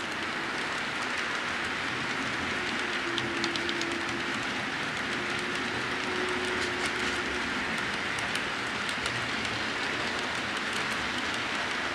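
HO scale model freight train of hopper cars rolling along the track: a steady rolling rumble with light clicking from the wheels, and a faint whine partway through.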